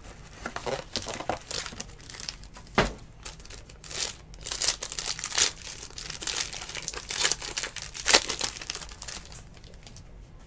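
Foil wrapper of a trading-card pack crinkling and tearing as the pack is pulled from its box and ripped open. The crackles are irregular and sharp, the loudest about three seconds in and again about eight seconds in, and they die down near the end.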